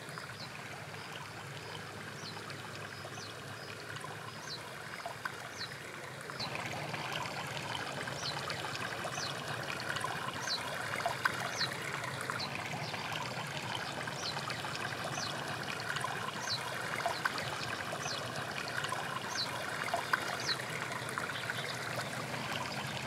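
Shallow stream water flowing and trickling around sticks, steady, and louder from about six seconds in. A short, high falling chirp repeats about once a second over the water.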